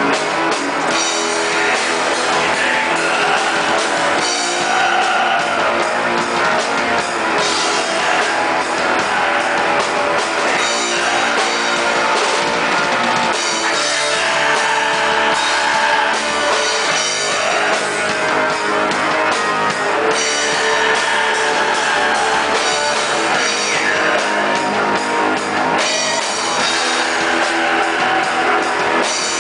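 Black metal band playing live: distorted electric guitars and a drum kit, loud and continuous without a break.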